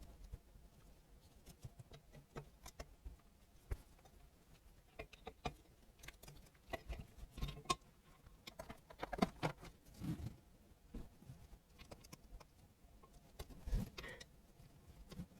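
Scattered light clicks and knocks of metal engine parts being handled and set down during an engine strip-down, with a cluster of louder knocks in the middle and one more near the end.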